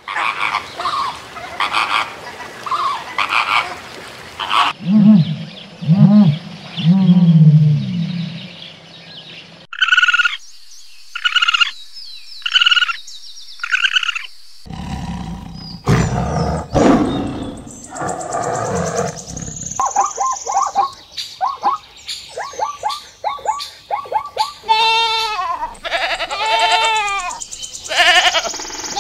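A run of different animal calls, cut one after another. It opens with repeated calls from a flock of flamingos and moves to low calls. About halfway there are four short calls from a raccoon. Near the end, goat kids bleat with a wavering pitch.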